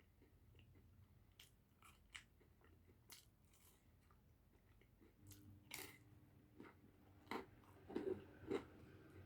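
Close-up eating sounds of someone biting and chewing pizza: faint, scattered mouth clicks and crunches, louder and more frequent after about five seconds.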